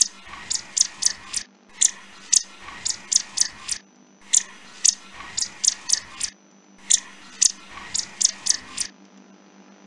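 Sound effect of a chipmunk nibbling and chewing: quick, crisp crunching clicks in four runs of about two seconds each, with short pauses between.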